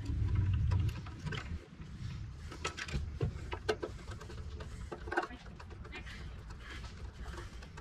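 Scattered light clicks and ticks from a ratchet and socket extension tightening the bolts that hold the Briggs & Stratton carburetor to the fuel tank, with a low rumble in the first second.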